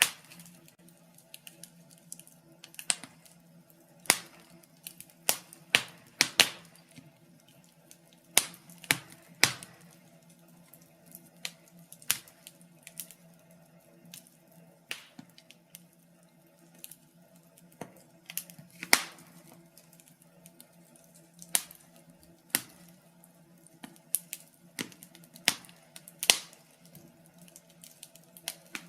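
Wood fire in a fireplace crackling, with irregular sharp pops and snaps every second or so over a faint steady low hum.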